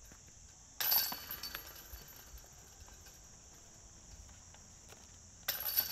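Two tap-in putts landing in a disc golf basket: a sudden metallic chain rattle about a second in and another near the end, each dying away within half a second. Each rattle marks a made par putt.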